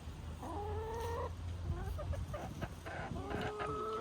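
Backyard hens calling: two drawn-out, steady-pitched calls about three seconds apart, with short clucks between them.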